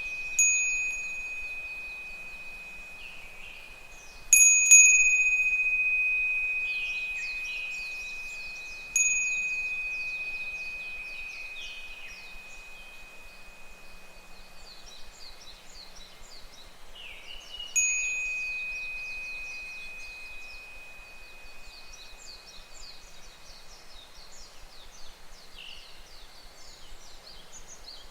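A Japanese wind bell (fūrin) is struck by its clapper four times. Each strike gives one clear ringing tone that fades slowly over several seconds, and the loudest comes about four seconds in. Behind it, higurashi (evening cicadas) call in repeated phrases of short, falling notes.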